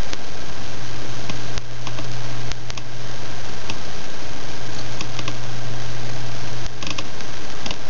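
Steady, loud hiss of a recording's background noise with a constant low hum beneath it, and a few faint clicks scattered through it.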